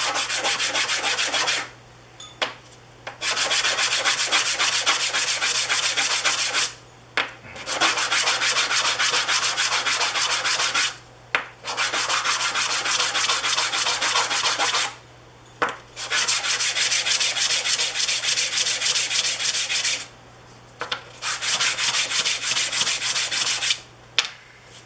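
Small wooden segments rubbed rapidly back and forth on sandpaper by hand, a scratchy rubbing in about six runs of a few seconds each, with short pauses and light clicks between them.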